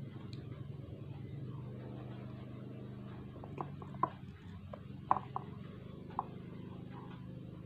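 Hands picking pieces of fruit out of a bowl: a few light clicks and taps, the sharpest about four and five seconds in, over a steady low hum.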